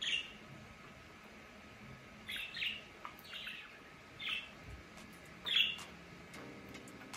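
Pet budgerigars chirping: about six short, sharp chirps at irregular intervals.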